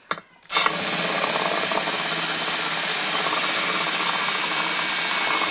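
Power drill running at a steady speed, spinning a plastic pipe sleeve being sanded down to size for a shifter pivot bushing. The drill starts about half a second in and runs on evenly.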